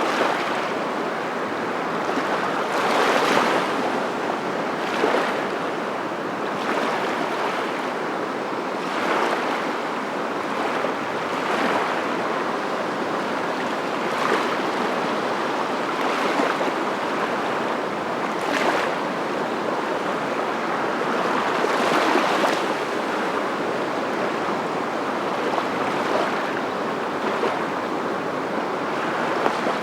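Steady rushing water with irregular brief louder surges every few seconds.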